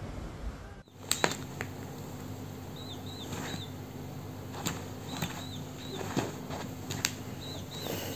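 Cat game app on a smartphone playing short high chirping sound effects, often in quick pairs. Sharp taps come as a cat paws at the phone's screen.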